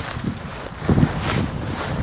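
Wind buffeting the microphone: an uneven low rumble, swelling louder about a second in.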